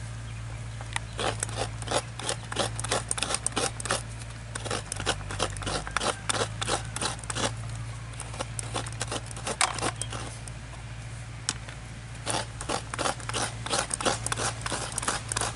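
Coconut half scraped against the toothed blade of a hand coconut scraper, quick rasping strokes several a second. They come in two long runs with a pause of a few seconds between, broken only by a couple of single strokes.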